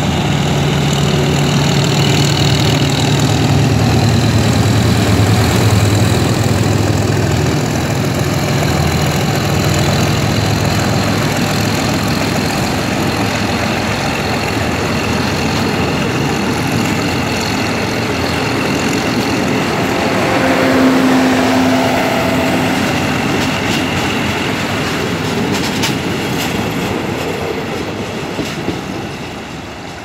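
GEK-class diesel-electric locomotive 4031 passing close by with its engine running at a steady drone. It is followed by a long rake of passenger coaches rolling past on the rails, and the sound fades toward the end as the train pulls away.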